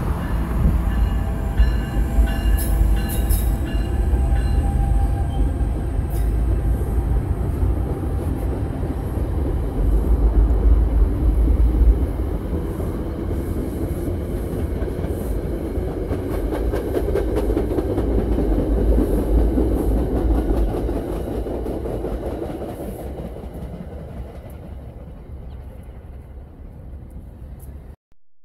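NJ Transit locomotive-hauled passenger train passing, with a steady low rumble and the clatter of wheels on the rails. It fades away over the last several seconds and cuts off suddenly just before the end.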